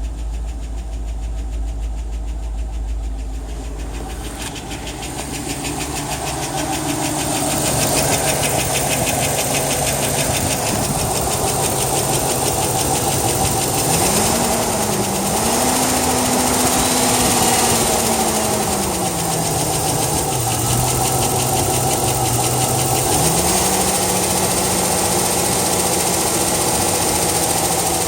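2002 Chevrolet Tahoe 5.3L V8 running cold with a rapid knocking tick, its pitch rising and falling a few times. It is the cold-engine noise that fades once the engine is warm, filed by the owner under low oil pressure.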